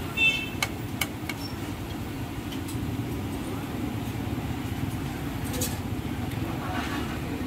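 Boondi deep-frying in a karahi of hot oil over a steady low rumble, with a few sharp metal clinks of the slotted steel ladle against the pan, the first one ringing, in the opening second.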